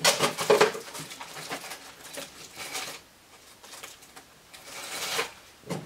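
Clicks, light taps and rustling of small objects being handled on a work table, busiest in the first second, with a brief rustling swell about five seconds in.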